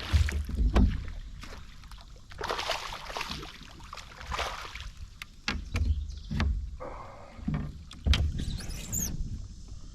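Irregular knocks and bumps against a kayak's hull, with splashing water, as a largemouth bass is fought and brought aboard.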